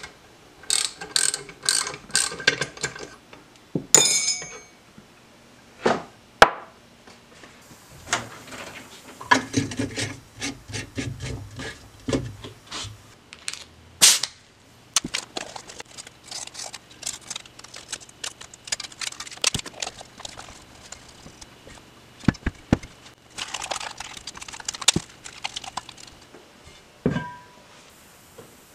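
Metal hand-tool work on engine parts: scattered clicks, clinks and scraping with several sharp knocks, first as a wrench turns a puller tool on a cylinder head, then as brass air-hose fittings are handled.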